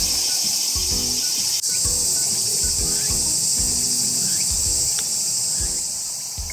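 Loud, steady, high-pitched chorus of summer insects, easing slightly near the end. Low rhythmic thumps sound underneath.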